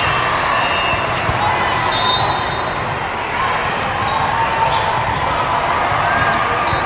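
Volleyball game sounds in a gym: the ball hitting and bouncing on the court, with short squeaks of sneakers on the floor and voices throughout.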